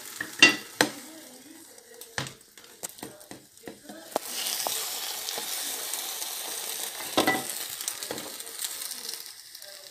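Potato omelette frying in butter in a non-stick pan: a soft sizzle that grows louder from about four seconds in, with a few sharp knocks, the loudest about half a second in.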